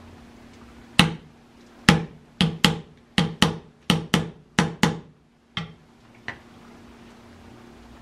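A small brass-headed hammer tapping on a metal part of an M1 Garand's barrel assembly: about a dozen sharp, ringing knocks, many in quick pairs, the last two softer.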